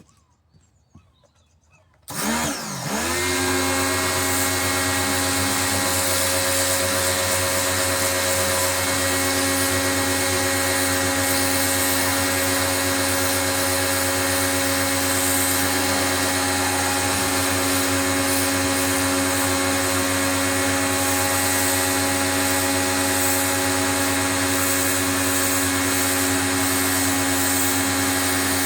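Pro-Kleen 1600 pressure washer starting up about two seconds in: its motor spins up quickly, then runs steadily with an even hum.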